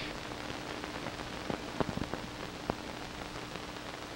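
Steady hiss with scattered faint clicks and a faint steady hum: surface noise of an old 1940s film soundtrack, with no clear machine sound.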